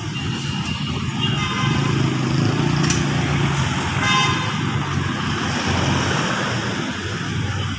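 City street traffic: cars and motorbikes driving past on a wet road, a steady hiss of tyres with engine hum underneath.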